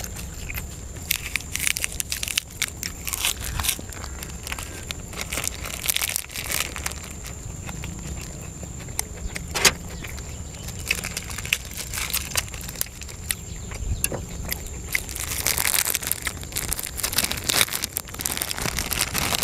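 Close-up eating sounds: chewing and biting into Thai sausages, with many short wet clicks and crackles. About three-quarters through a plastic bag starts crinkling as it is handled, and a steady thin high tone in the background stops.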